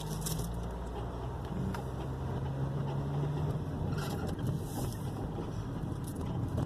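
Inside the cabin of a 2001 Toyota Corolla on the move: a steady low engine hum with road and tyre noise, and the engine note easing off about halfway through.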